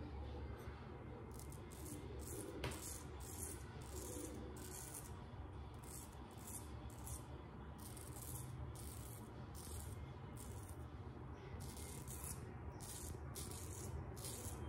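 Inoue Tosuke kamisori, a Japanese straight razor, shaving lathered stubble on the neck: faint, short scraping strokes, about two or three a second.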